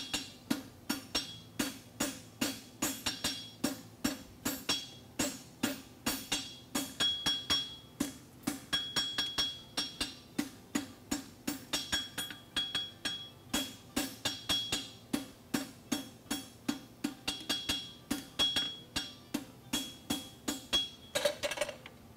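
Hand hammer striking a red-hot steel bar on a steel anvil in a steady run of blows about three a second, each with a bright metallic ring from the anvil, forge-welding the folded heel of a horseshoe. The blows stop shortly before the end.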